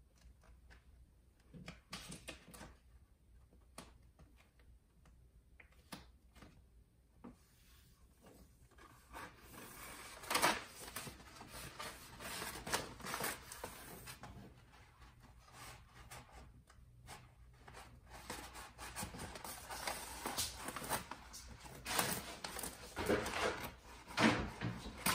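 Rustling, rubbing and light knocks of a peel-and-stick wallpaper sheet being handled against a wall, sparse at first and getting busier and louder about nine seconds in.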